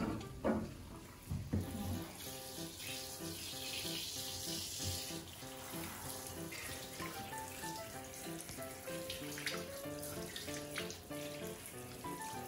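Handheld shower head spraying water, rinsing the lather off a wet long-haired cat. The spray starts about two seconds in, after a couple of knocks. Light background music with short plucked notes plays throughout.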